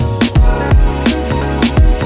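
Background music with a steady electronic drum beat, deep kicks about twice a second under sustained pitched notes.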